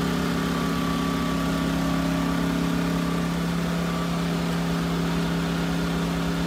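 Taiwan Power GT2000W 79cc portable inverter generator running at a constant speed, a steady, even engine hum.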